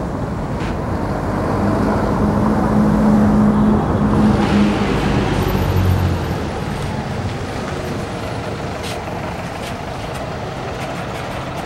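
Volvo B8R city bus's six-cylinder diesel engine running as the bus drives up and draws alongside, over road traffic noise. A steady engine hum in the first few seconds drops lower about halfway through.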